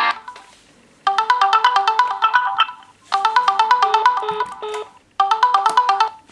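Mobile phone ringtone: a short melody of quick notes played three times with brief pauses between.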